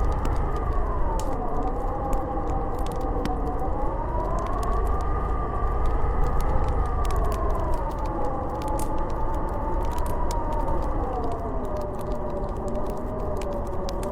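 Howling blizzard wind: a wavering whistle that slowly rises and falls in pitch over a low rumble, with the faint crackle of a wood fire.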